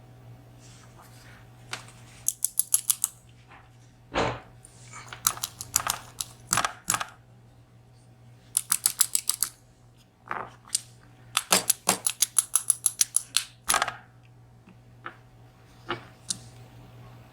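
Runs of small, sharp metallic clicks, about eight a second, with a few single taps in between, from a VSR dimple lock cylinder being taken apart by hand as its center pins are worked out. A faint steady hum lies underneath.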